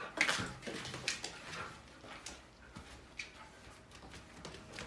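Soft, scattered footsteps and shuffling on the floor as a Siberian husky walks off down a hallway with a person following, with a louder rustle right at the start.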